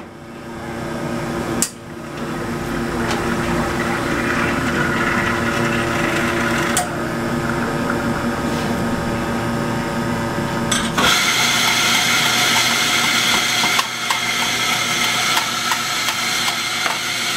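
Steady machine hum made of several held tones, changing abruptly a few times, with faint light ticks in the last few seconds.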